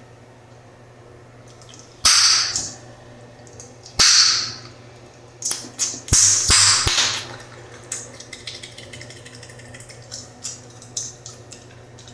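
Bubblegum snapped loudly in the mouth: a sharp pop about two seconds in, another about four seconds in, and three quick ones around six to seven seconds, each with a brief hiss after it. Smaller wet clicks of chewing follow.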